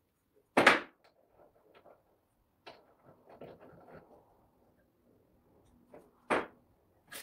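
Two sharp knocks, one about half a second in and one near the end, with softer clicks of handling in between, as parts of a Multilith 1250's compressor are fitted together by hand on the bench.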